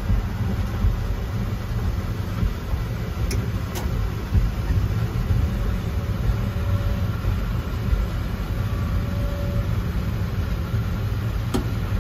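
Ride-on miniature train running along its track, heard from inside its small cab: a steady low rumble, with a few sharp clicks about three and four seconds in and again near the end.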